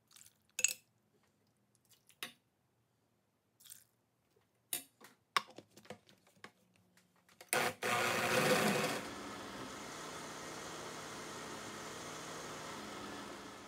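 A ladle clinks against a glass blender jar and the lid is clicked on, a few scattered knocks. Then a countertop blender motor starts about halfway through, loudest for the first second and a half, then runs steadily, puréeing cooked vegetables and broth into soup.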